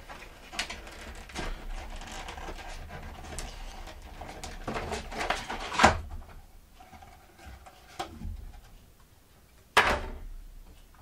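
Clear plastic clamshell packaging being handled and pried open, crinkling with small clicks and a sharper snap about six seconds in. A single knock comes near the end.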